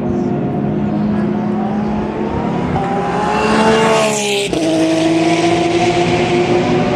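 Endurance racing car engines. One rises in pitch as it accelerates, shifts up sharply about four and a half seconds in, then climbs again in the next gear, over the steady sound of other engines.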